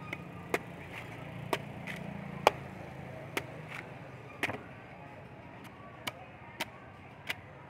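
A large, heavy knife chopping into the husk of a young green coconut: about a dozen sharp strikes at an uneven pace, the loudest about two and a half seconds in. A low steady rumble sits underneath through the first half.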